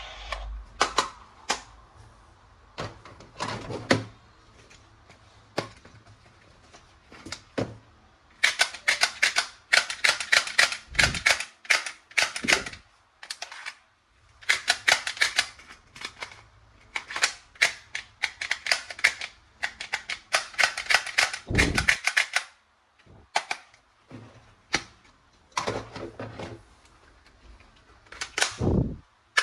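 Toy guns firing in rapid bursts of clicking shots, each burst lasting a few seconds, with scattered single clicks and a few dull handling thumps between bursts.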